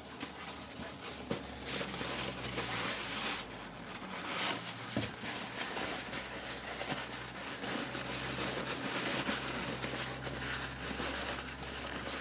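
Tissue paper rustling and crinkling as hands unwrap a packed succulent plant, with a faint steady low hum underneath.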